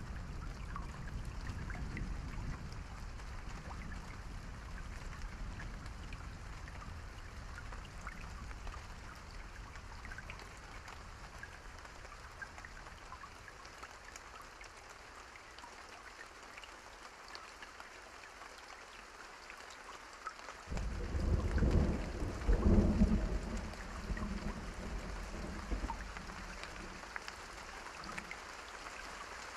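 Steady rain falling, with a low rumble of distant thunder that fades over the first half. About 21 s in, a loud roll of thunder breaks out and rumbles for several seconds before dying away.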